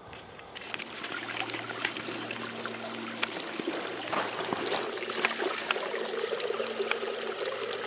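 A small creek trickling, starting about half a second in, with water gurgling into a plastic water bottle held under the surface to fill it.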